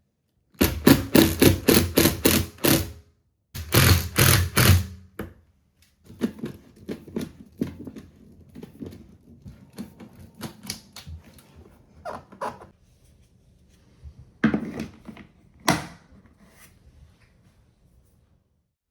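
Two quick runs of sharp knocking clicks, about four a second, then quieter scattered clicks and scraping, and two louder knocks near the end.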